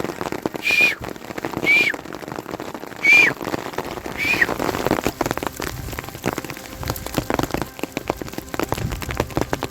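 Rain falling in a dense patter of drops hitting a surface. In the first half, four short whistled notes sound, each rising slightly and then dropping off.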